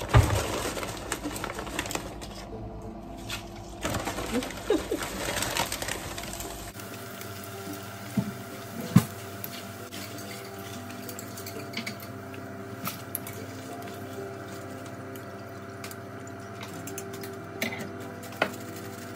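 Emping (belinjo nut crackers) deep-frying in hot oil in a frying pan: a steady sizzle, with a few sharp knocks as a wire strainer stirs and lifts them.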